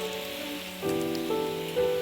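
Background music of sustained pitched notes, a new chord or note about every half second, over a steady hiss like light rain.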